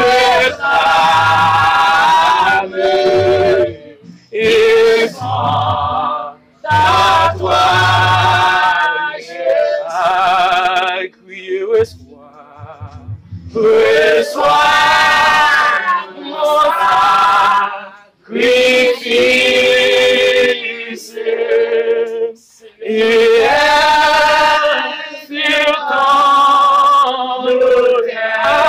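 Voices singing a hymn, in held, wavering phrases with short breaks between them.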